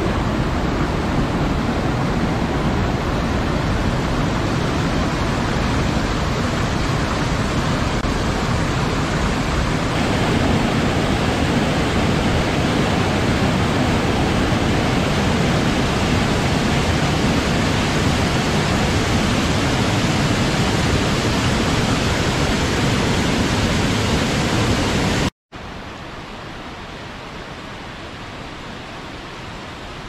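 Waterfall's steady, even rushing noise. About 25 seconds in it drops out for a split second and returns much quieter.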